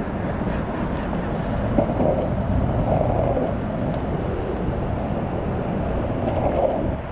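A steady low rumbling noise.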